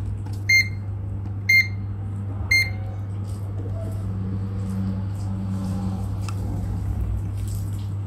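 A UNI-T digital clamp meter gives three short high beeps about a second apart as its SELECT button is pressed to step through its measuring modes, over a steady low electrical hum.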